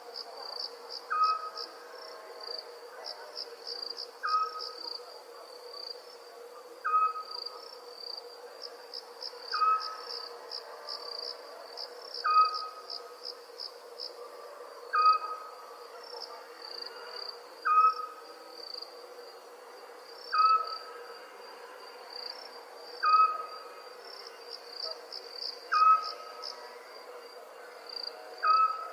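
Night ambience of crickets chirping in fast pulsed trills. A short, single-note call repeats about every two and a half seconds and is the loudest sound. A faint steady hum runs underneath.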